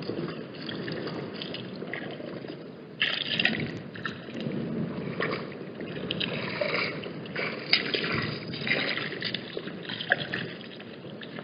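Wind buffeting the microphone, with water splashing and gurgling in irregular bursts, the loudest about three seconds in and near the eight-second mark.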